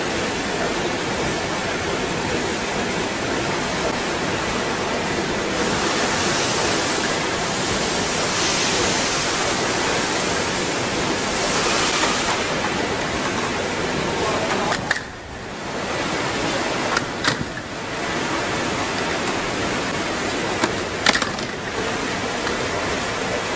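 Steady rushing noise of the running screen printing line's machinery. It dips briefly about fifteen seconds in, followed by a few sharp clicks.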